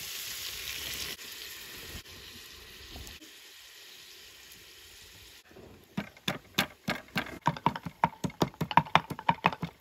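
Meat sizzling in a pot over a wood fire as it is stirred, fading after about two seconds. From a little past halfway, a wooden pestle pounds ginger and garlic in a wooden mortar: a fast run of sharp knocks, about five a second, the loudest part.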